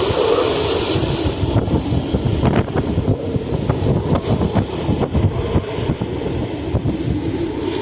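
Hurricane-force wind in a major hurricane's inner eyewall: a loud, continuous roar with gusts buffeting the microphone, and a wavering howl at the start and again near the end.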